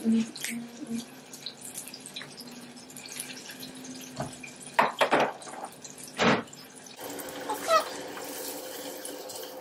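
Kitchen work: a steady watery hiss with a few sharp clatters about five and six seconds in, the hiss growing stronger with a low hum from about seven seconds.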